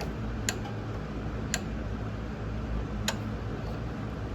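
Harbor Freight hand torque wrench clicking on the fork pinch bolt: three sharp clicks about a second apart, over a steady low hum.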